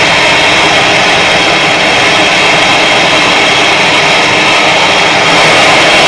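Gas brazing torch burning with a steady, loud hiss as its flame heats a copper suction-line joint; a little louder about five seconds in.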